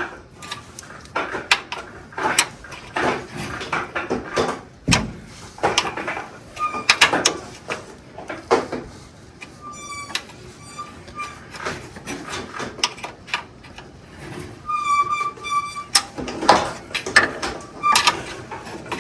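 Irregular metallic clinks, clicks and knocks of hand tools and brake-line parts being handled, with two short high squeaks, one about ten seconds in and one about fifteen seconds in.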